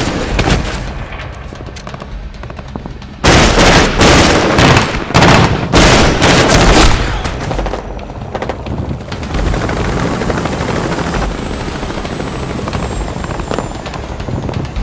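Automatic gunfire in rapid bursts, loudest from about three to seven seconds in, with quieter scattered shots and echo around it and film score underneath.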